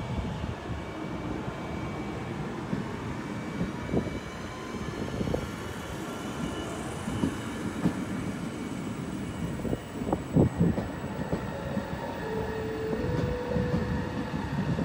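Electric train running along the track, with irregular wheel knocks from the rails over a steady rumble and a faint thin high tone. A short mid-pitched tone sounds twice near the end.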